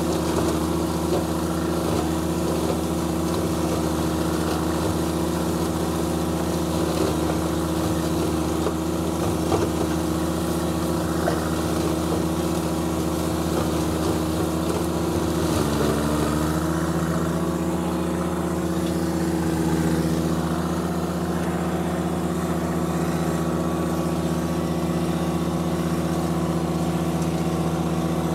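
John Deere 1025R compact tractor's three-cylinder diesel running steadily at working speed while a rear-mounted mower cuts dry corn stalks. About halfway through, the engine note dips briefly in pitch and then comes back up.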